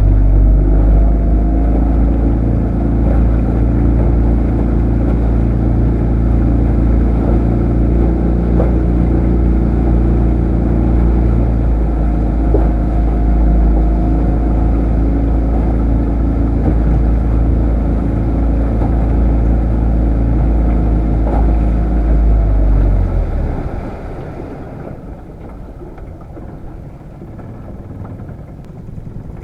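A small fishing boat's engine running steadily under way, with water noise. Near the end the engine note drops away sharply and the sound falls to a much quieter level, as the boat throttles back.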